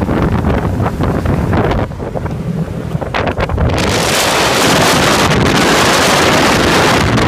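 Wind buffeting the microphone aboard a moving boat, gusty and low at first. About four seconds in it turns into a loud, steady rushing hiss.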